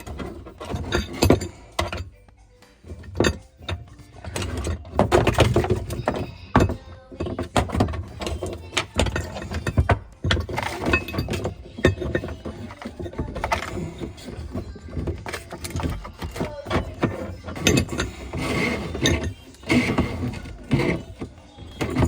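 Irregular knocks, thunks and clinks, with music playing in the background.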